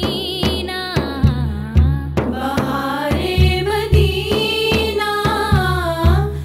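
Women singing a naat, an Urdu devotional song, with a wavering melodic line, over daf frame drums beating a steady rhythm about twice a second.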